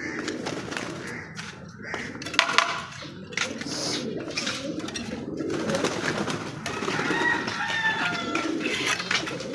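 Domestic pigeons and doves cooing, several at once in a steady low murmur, with scattered sharp knocks and clicks, the loudest about two and a half seconds in.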